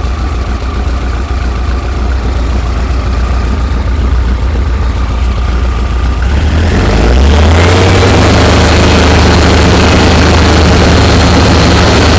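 1900 cc air-cooled VW flat-four on dual EMPI 40 IDF carburettors idling, then brought up to a higher steady speed about seven seconds in and held there, while its ignition timing is set to 28 degrees.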